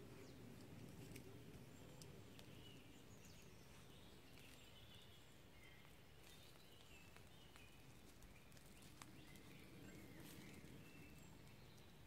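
Near silence: faint woodland ambience with scattered distant bird chirps and a few faint clicks.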